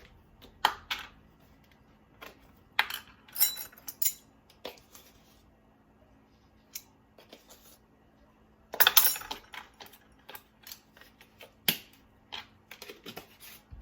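Intermittent clicks and clinks of spice containers and measuring spoons handled while seasonings are measured out, with a denser rattling clatter lasting about a second roughly two-thirds of the way in.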